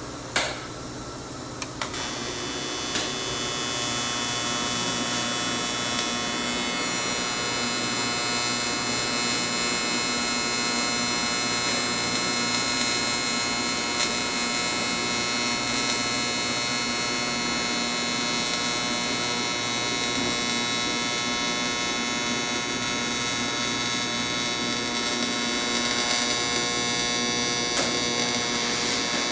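AC TIG welding arc on cast aluminum: a sharp crack about half a second in as the arc strikes, then a steady electric buzz that grows louder over the next few seconds and holds.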